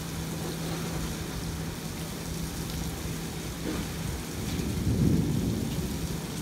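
Rain falling, with a low rumble of thunder that swells and fades about five seconds in. A steady low hum runs underneath.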